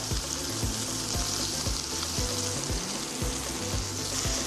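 Quartered champignon mushrooms frying in a pan, with a steady sizzle. Background music with a low, regular beat plays under it.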